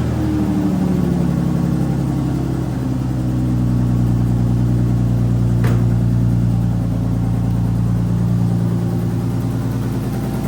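Lexus engine idling just after a start, the idle easing down and settling over the first few seconds, with a single click about six seconds in. The exhaust has a leak at the header that makes it tick, which the owner puts down to a bent head stud and worn header gaskets.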